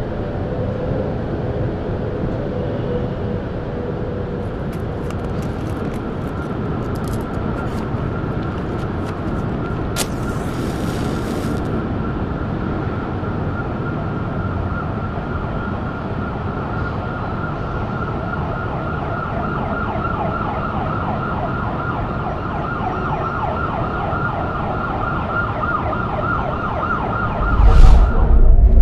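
Teaser soundtrack of a dense steady rumble, with a high wavering tone that comes in about halfway and grows stronger. It ends in a loud, deep boom near the end.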